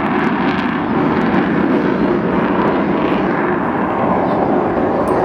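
Avro Vulcan's four Rolls-Royce Olympus jet engines heard in flight: a loud, steady rushing jet noise with no break.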